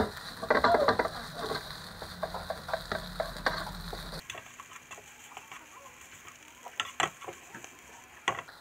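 Wooden spatula scraping and knocking against a nonstick (Teflon) pan as cooked rice is broken up and stir-fried, with a light frying sizzle. The scraping is busy for the first four seconds, then turns to sparser taps with a few sharp knocks near the end as the rice is tossed.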